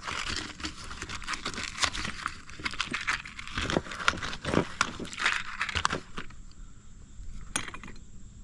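Hands handling a pack of 5/16-inch stainless steel hex bolts: crinkling packaging with small clicks and clinks for about six seconds, then quieter, with one sharp click near the end.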